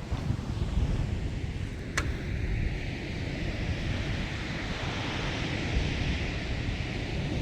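Sea waves washing, with wind buffeting the microphone in a low rumble; the wash swells in the middle. One sharp tick about two seconds in.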